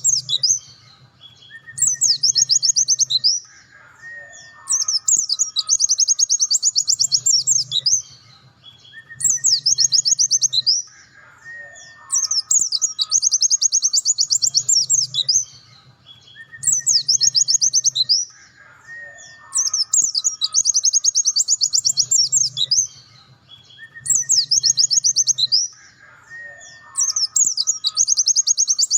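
Pleci dakun white-eye singing its long, rapid 'nembak' song: high, fast-repeated chattering phrases of one to three seconds, returning every few seconds with short pauses, and fainter lower whistled notes in between.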